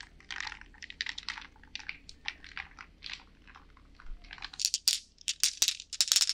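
Ice cubes clinking against a highball glass as a bar spoon stirs them, a run of light irregular clinks. About four seconds in, sharper, brighter clicks of small hard objects are rattled in cupped hands right at a binaural ear-shaped microphone.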